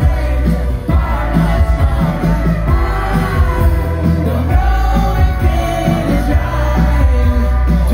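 Live rock band playing loudly: a male lead vocalist sings into a microphone over electric guitar and a heavy bass-and-drum beat.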